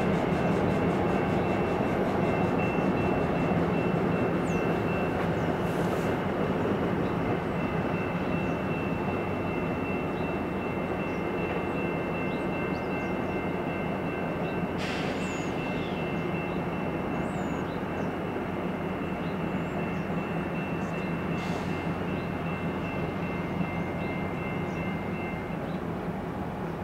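A pair of CN diesel locomotives hauling loaded freight cars, engines running and wheels rolling on the rails, slowly fading as the train moves away. A thin, steady high tone runs through it.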